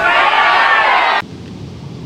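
A large crowd cheering, many voices at once, cut off abruptly a little over a second in; a quieter steady background follows.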